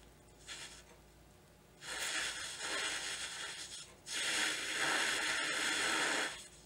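Hissing blows of breath through a jeweller's mouth blowpipe, driving an alcohol-lamp flame onto a ring to melt the solder at its joint: one short blow about half a second in, then two long steady blows with a quick breath between them.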